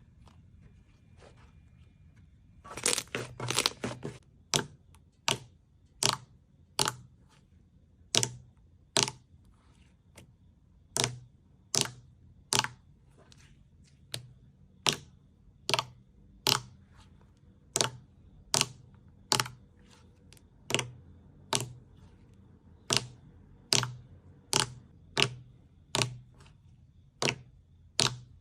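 Slime popping: a short burst of crackling, then sharp wet pops at an even pace of about one every three-quarters of a second.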